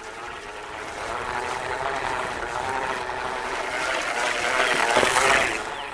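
Hand-crank chest-mounted broadcast seed spreader being cranked, its gears giving a steady, slightly wavering whir as seed is flung out. Steps swish through tall grass, the sound growing louder toward the end.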